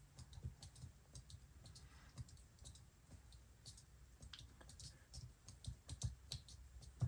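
Faint, irregular light clicks and taps from the opened MacBook Pro being rocked back and forth by hand, working solvent into the battery adhesive.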